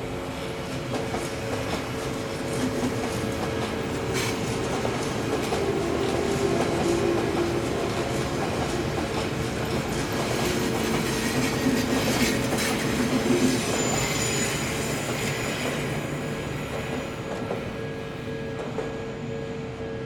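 Odakyu 2000 series electric train rolling over a level crossing and its points, wheels clattering over rail joints and the switch, with a brief high wheel squeal about two-thirds of the way through. A Japanese level-crossing warning bell rings steadily throughout.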